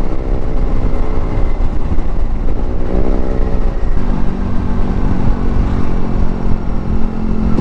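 Yamaha NMAX scooter's single-cylinder engine running at road speed over a steady low rumble. The engine pitch rises and falls twice, then holds steady from about four seconds in.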